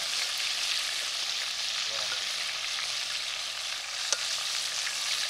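Flour-coated chicken pieces deep-frying in hot oil in a pot, a steady sizzle as they are stirred, with one sharp click about four seconds in.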